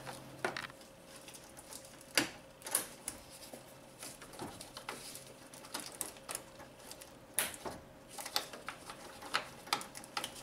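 Irregular plastic clicks and taps of wiring-harness clips and electrical connectors being snapped onto the plastic cooling-fan shroud, a dozen or so scattered snaps.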